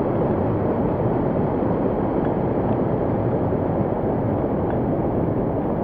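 Muddy floodwater rushing and churning in a fast-flowing flooded wash: a steady, even rushing noise, heaviest in the low range.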